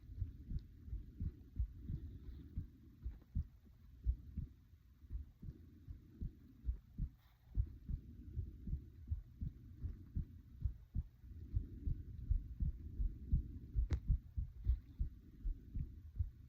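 A person's heartbeat picked up close against the body: a steady run of low, muffled thumps. Breathing comes through as a soft rushing that swells and fades between the beats, and a single sharp click sounds near the end.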